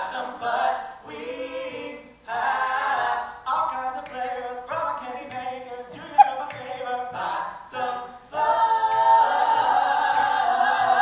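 A small mixed group of voices singing a cappella in harmony, in short choppy phrases, with one brief loud accent about six seconds in, then a fuller chord held from about eight seconds on.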